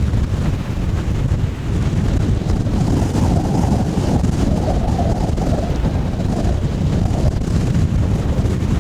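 Strong wind from a supercell thunderstorm blowing across the microphone: a steady loud rush with heavy low buffeting.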